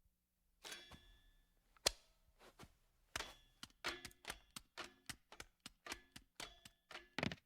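Animated-film Foley sound effects: a short rustle about a second in, then a sharp click, followed by a quick run of light, hard taps and clicks, roughly three a second, the loudest near the end.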